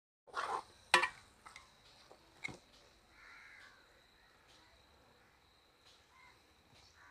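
A crow caws faintly a couple of times, with a sharp knock about a second in and a few lighter clicks of a metal ladle against the cooking pot.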